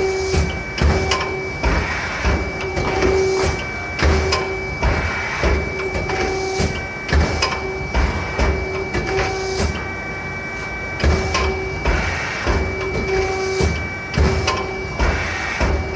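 Hang tag box stripping machine at work: irregular knocks and clatter about once a second as the stripping head presses through the sheet and waste pieces drop, over a steady high whine and a lower hum that comes and goes.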